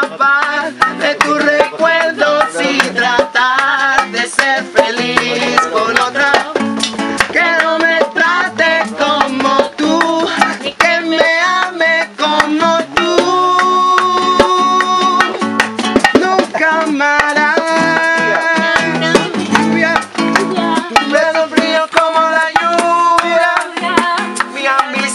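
Live acoustic Latin music: a man singing over a strummed nylon-string classical guitar, with congas and a shaker keeping the rhythm.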